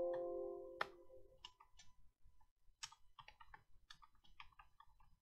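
A computer alert chime, several tones together, rings out and fades over about a second and a half. A single click follows, then a quick run of keyboard typing clicks from about three seconds in.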